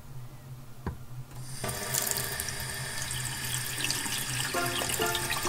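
A washbasin faucet's pull-out spray head turned on, water spraying down into the sink basin with a steady hiss. The water starts about a second and a half in, after a faint click.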